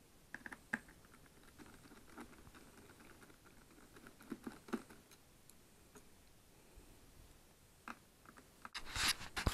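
Screwdriver clicking and scraping faintly against small screws as they are undone from a 2008 iMac's case, with light scattered ticks in the first half. Near the end there is a louder burst of clicks and handling noise.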